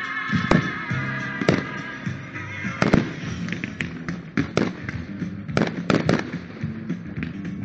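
Fireworks going off: a string of about a dozen sharp bangs from shells and comets bursting, the loudest about three seconds in and a quick cluster near six seconds, over disco music.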